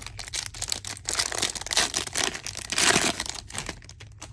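Foil wrapper of a baseball card pack crinkling as it is torn open and crumpled, with a dense run of crackles that is busiest in the middle.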